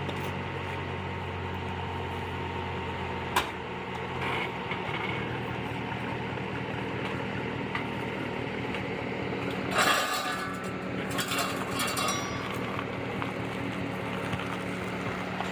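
2002 Mercedes-Benz CL500's V8 engine running steadily, with a sharp click a little over three seconds in and a short rush of noise about ten seconds in.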